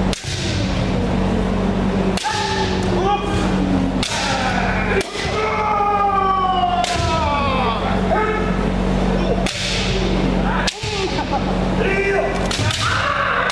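Kendo practice: bamboo shinai cracking against armour and feet stamping on the wooden floor every second or two, mixed with several practitioners shouting kiai at once.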